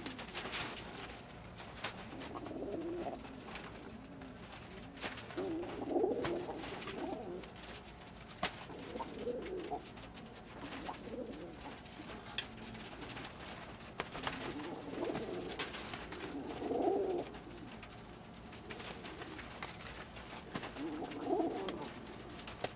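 Old German Owl pigeons cooing in about six separate bouts, with sharp clicks and wing flaps in between, as the males fight over females.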